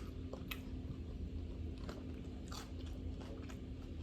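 Close-miked chewing of a mouthful of salad, with a few soft, crisp crunches at irregular intervals.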